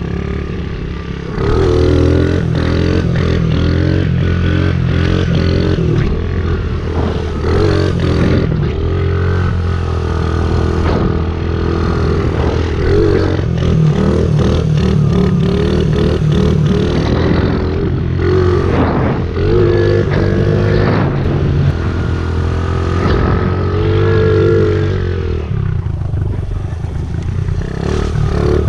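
Honda CRF50 pit bike's small four-stroke single-cylinder engine running while being ridden, its note rising and falling again and again with the throttle. It gets louder about a second and a half in.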